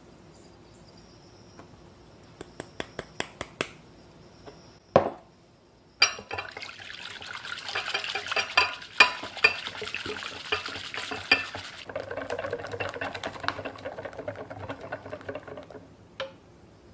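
A wire balloon whisk whipping heavy cream and sugar in a glass bowl: rapid clicking and scraping of the wires against the glass. A few light taps come before it starts. From about halfway the sound turns duller and softer as the cream thickens.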